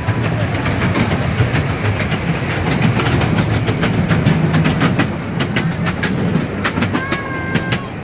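Small passenger train running on its track, its wheels clicking over the rails above a steady low rumble. A short, steady high tone sounds for under a second near the end.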